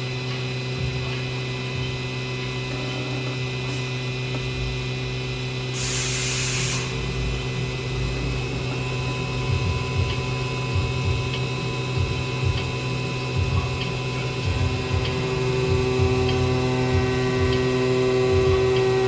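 A machine tool's electric motor running with a steady hum. There is a short hiss, like a blast of air, about six seconds in, and intermittent light knocks in the second half.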